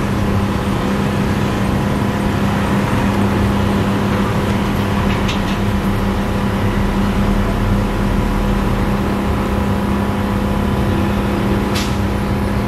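A steady mechanical hum with a constant low drone over an even wash of noise, unchanging in level, and two faint brief ticks.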